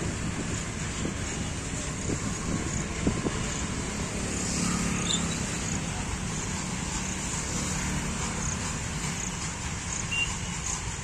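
Open freight wagons rolling past on the rails: a steady rumble of wheels on track, with faint light ticks now and then.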